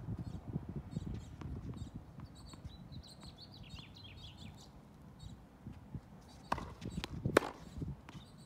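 Small birds chirping over a low rumble, then three sharp knocks in quick succession about two-thirds of the way through, the last the loudest: a tennis ball bouncing on a hard court and being struck with a racket.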